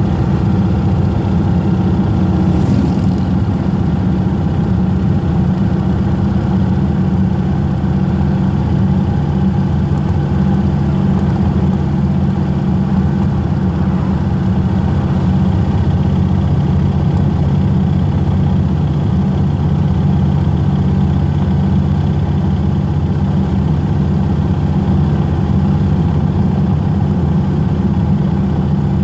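Motorcycle engine running at a steady cruise while riding, its pitch and loudness holding even throughout.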